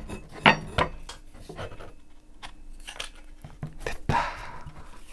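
Airsoft rifle upper and lower receivers being handled and fitted together: a series of sharp clicks and knocks as the parts are lined up and pushed into place, with a short scraping sound about four seconds in.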